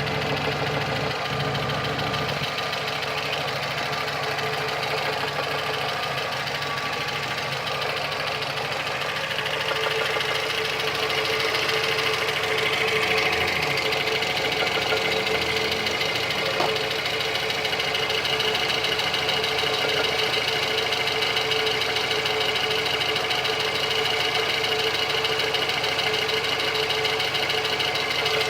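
Lada VAZ-2115 petrol engine idling with a rapid, steady knock from the top of the engine, which the owner puts down to axial play of the camshaft.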